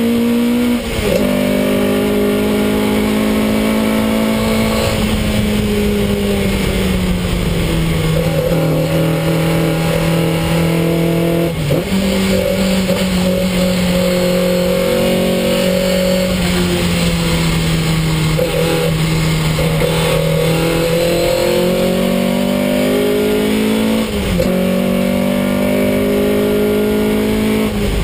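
Ford Anglia special saloon race car's engine under hard racing load, heard from inside the stripped cabin. The engine note rises and falls with the track and jumps at brief breaks for gear changes, about a second in, near the middle, about three-quarters through and again at the end.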